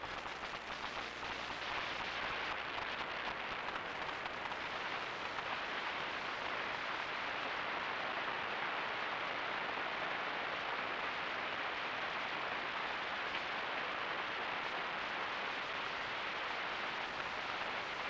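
A steady, even hiss with no distinct clicks, calls or footsteps, typical of an outdoor trail-camera recording.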